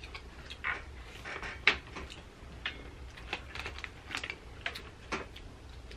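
Irregular small clicks and cracks of snow crab shells being snapped and picked apart by hand, with mouth and eating noises; two sharper cracks, one about a second and a half in and one near the end.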